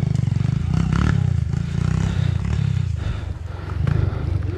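Tornado 300cc trail motorcycle's single-cylinder engine running under way, its revs rising and falling, with a few knocks and rattles from the bike.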